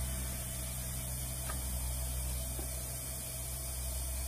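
Steady low machine hum with an even hiss, from equipment running without a break.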